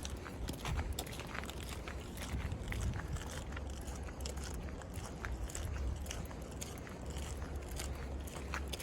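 Boots crunching through snow, a dense run of short irregular crunches over a steady low rumble.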